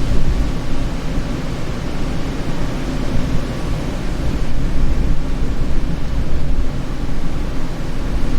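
Wind blowing steadily as a room-tone bed: a deep, continuous rumbling rush, heaviest in the low end, gently swelling and easing.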